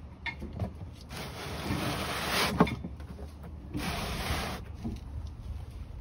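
Hand work at a lifted truck's front wheel and suspension: two bursts of noise, the first about a second and a half long with a sharp knock near its end, the second shorter, with small clicks between.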